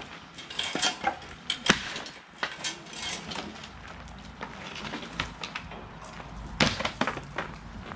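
Chains and steel hoist gear clinking and clanking as a chain hoist on a steel A-frame gantry is worked. There are scattered sharp metal knocks, with a cluster of the loudest ones near the end.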